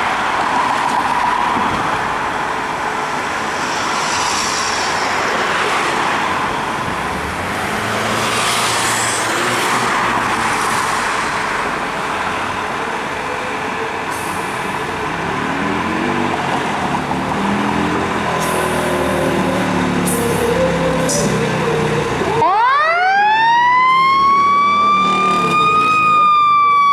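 Fire engine responding: its engine runs under street noise, then its siren winds up about three-quarters of the way in, rising steeply to a high wail and just starting to fall near the end.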